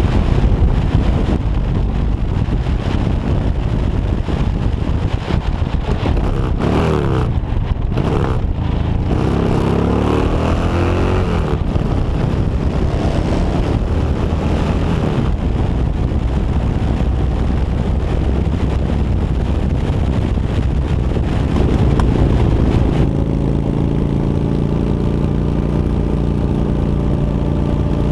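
Motorcycle engine running while riding along a road, with wind noise on the microphone. The engine pitch rises and falls a few times about a third of the way in, then holds steady near the end.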